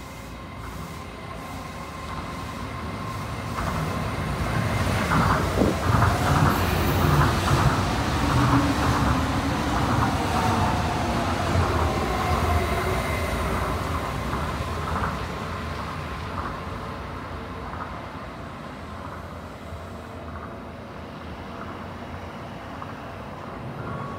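Tokyo Monorail train, a rubber-tyred monorail running on a concrete beam, approaching and running close past. Its rumble and motor whine build up, are loudest around the middle with a whine that falls in pitch, then fade as it draws away.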